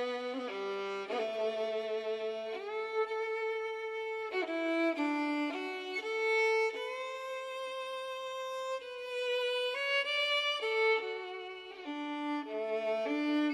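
A fiddle playing a slow melody of held notes, with vibrato and a few sliding notes.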